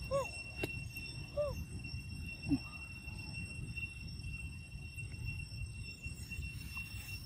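Monkey giving three short soft calls about a second apart, the first two rising then falling in pitch and the last falling, over a steady high-pitched whine.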